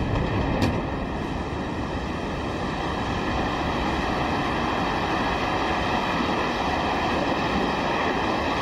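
Explosion of an airliner crashing into the World Trade Center's South Tower: a sharp crack about half a second in, then a loud, steady roar that does not fade.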